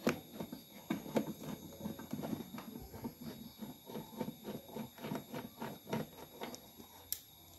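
A screwdriver turning a screw out of the plastic base of a Cosmos rice cooker: a steady run of small clicks and scrapes, about three a second, with a sharper click near the end.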